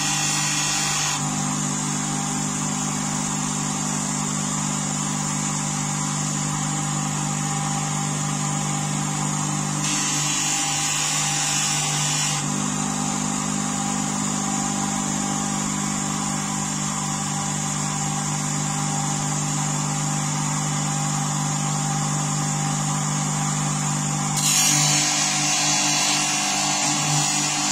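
Bench grinder motor running with a steady hum. Three times, at the start, about ten seconds in and near the end, a higher hiss joins it as the steel blade of a hook knife is pressed against the spinning felt polishing wheel for final sharpening.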